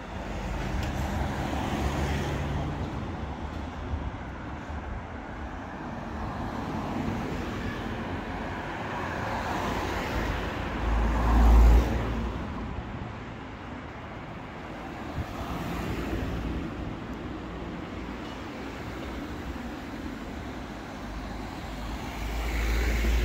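Road traffic: cars passing along a narrow town street, swelling and fading as each goes by, with a brief loud low rumble about eleven seconds in.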